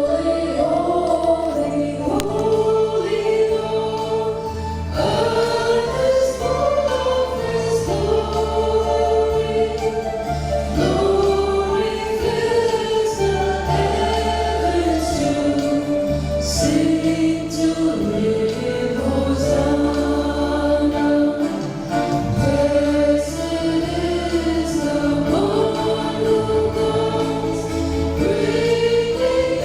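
Church choir singing at Mass, several voices moving together over sustained low bass notes that change every second or two.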